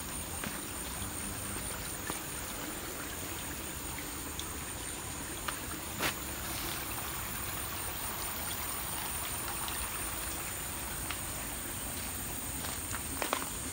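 Forest ambience: a steady high-pitched insect drone over an even hiss of trickling stream water, with a few light clicks of footsteps, one about six seconds in and a couple near the end.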